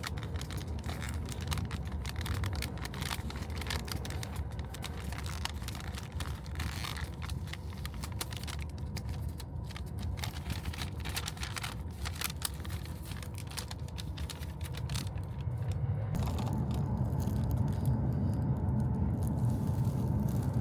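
Commuter train running: a steady low rumble that grows louder about sixteen seconds in, with many small crackling clicks over it.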